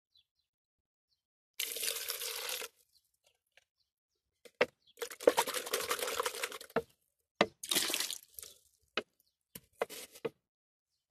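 Water pouring and splashing from a cut plastic bottle in four separate bursts, with a few light knocks of the plastic between them.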